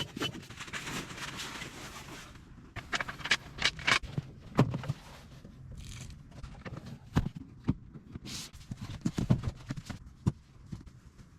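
Irregular knocks, clicks and scrapes, with a brief hiss of noise in the first couple of seconds.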